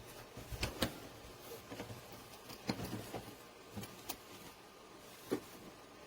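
Scattered light clicks and knocks from an empty soft-sided spinner suitcase being handled.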